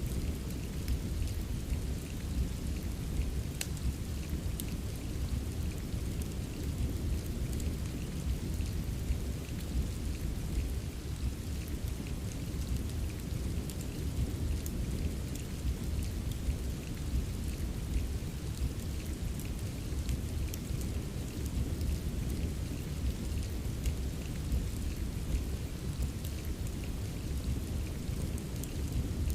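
Steady rain ambience with a deep, constant low rumble, dotted with faint scattered crackles typical of a wood fire in a fireplace.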